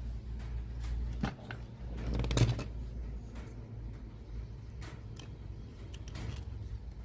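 A run of small clicks and knocks, busiest and loudest about two and a half seconds in, over a low steady hum.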